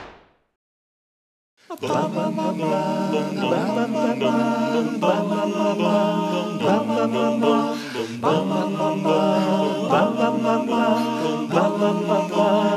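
Male a cappella choir singing sustained close-harmony chords that change every second or two. The singing comes in about two seconds in, after a moment of silence.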